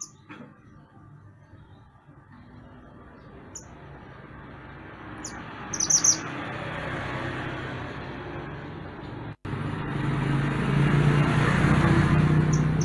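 A few short, high bird chirps, clustered around the middle and again at the very end, over a steadily rising rumble like a motor vehicle approaching, which becomes the loudest sound in the second half.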